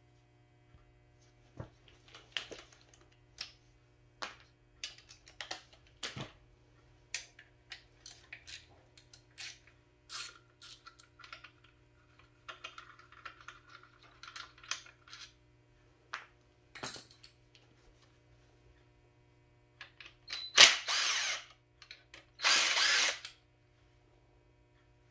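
Hand ratchet clicking and tool clinks on engine case bolts, then a cordless drill-driver spinning twice, about a second each time, near the end while taking out the Gold Wing's clutch bolts.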